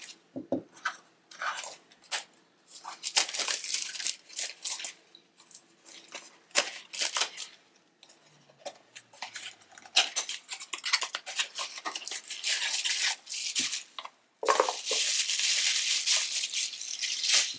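Unpacking Ulanzi Claw quick-release bases by hand: irregular rustling and tearing of packaging mixed with sharp little clicks and knocks, with an unbroken stretch of rustling for about three seconds near the end.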